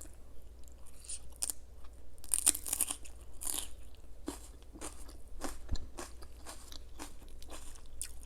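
A person biting and chewing crunchy food, with irregular crisp crunches, the loudest about two and a half seconds in.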